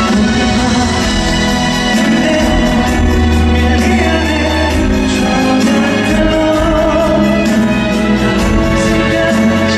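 Live pop singing by male vocalists over steady instrumental backing with sustained bass notes.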